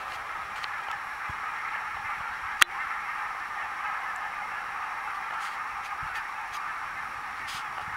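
A large flock of wild geese calling together at a distance, their massed cries blurring into a steady chatter. A single sharp click sounds about two and a half seconds in.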